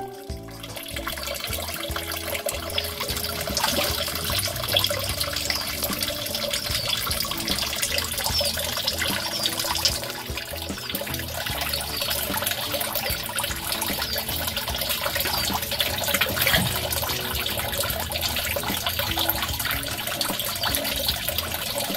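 Steady running, splashing water of a backyard aquaponic fish tank, with background music underneath.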